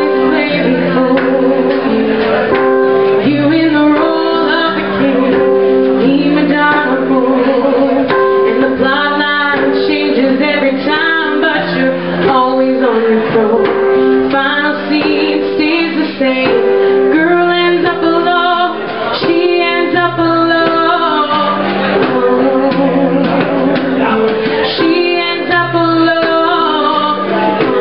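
A woman singing a song over instrumental accompaniment that includes guitar.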